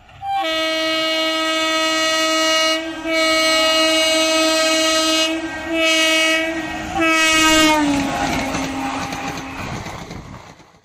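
Indian Railways electric locomotive sounding its horn in four blasts as it runs through a station at speed: two long, then two short. The last blast drops in pitch as the locomotive passes. It is followed by the rush and wheel clatter of the coaches going by, fading away.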